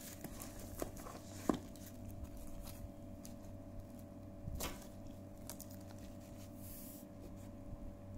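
Faint handling of packaging: bubble wrap and cardboard rustling and a few light clicks and taps as a boxed diecast model car is lifted out of a shipping carton, the sharpest click about a second and a half in. A steady low hum sits underneath.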